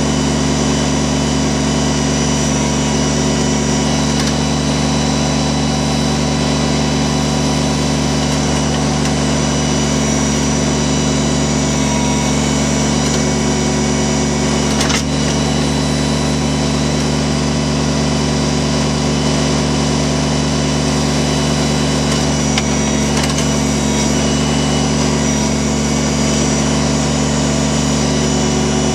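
Kubota BX24 compact tractor's three-cylinder diesel engine running at a steady speed while working the backhoe, with one sharp click about halfway through.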